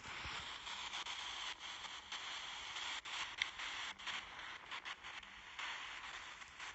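A steady hiss of static-like noise that cuts in suddenly and fades near the end, broken by several brief dropouts.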